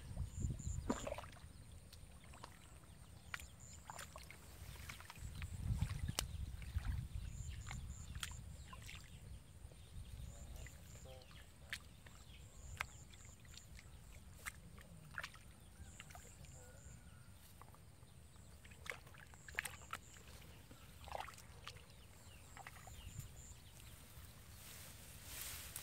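Water sloshing and splashing in shallow water, with scattered small clicks and knocks. Swells of low rumble come about a second in and again around six seconds. Faint high chirps in short groups of two to four repeat throughout.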